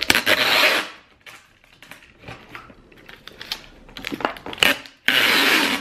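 Packing tape pulled off a handheld tape-gun dispenser onto a cardboard box: a long strip at the start and another near the end, with light clicks and taps in between.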